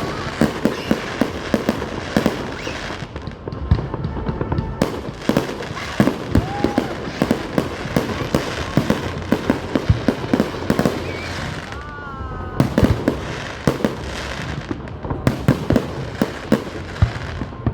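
Fireworks display: a dense, continuous barrage of bangs and crackling, several bursts a second, with a few whistling shells gliding in pitch, the clearest about twelve seconds in.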